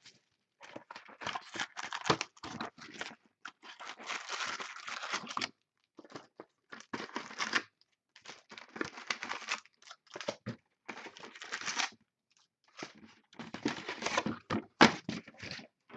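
Plastic shrink wrap being torn off a sealed box of trading card packs and crinkled, and the cardboard box being opened and handled, in irregular bursts of crackling with short pauses.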